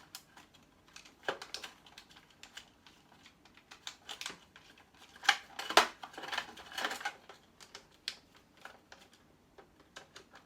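Irregular clicks and knocks of small plastic electrical switch parts being handled and pried or clipped apart, with two louder sharp clicks about five and a half seconds in.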